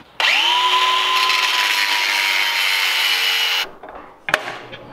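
Handheld DeWalt angle grinder spinning up to a steady high whine and cutting small steel tabs for about three and a half seconds, then cutting off abruptly. A single sharp click follows near the end as the welder is switched.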